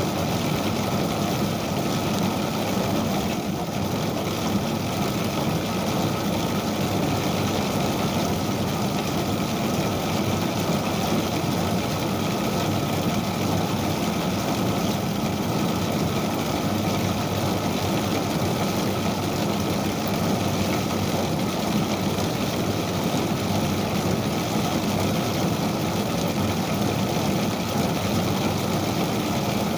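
Ijuk (sugar palm fibre) combing machine running, a steady mechanical drone with no change in level.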